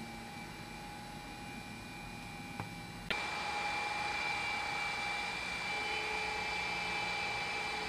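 Steady machine hum and whir with a thin high whine running through it. There is a single click a little over two and a half seconds in, and the whole sound steps louder just after three seconds.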